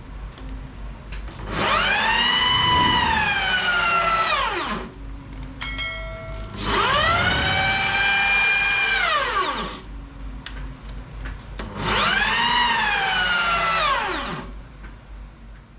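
Motors on a home-built CNC router whining through three axis moves. Each move ramps up in pitch, holds steady for about two seconds, then ramps back down as the axis slows and stops.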